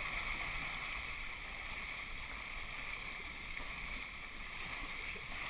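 Steady rush of water and wind as a 29er skiff sails fast, close to planing, with spray across the deck.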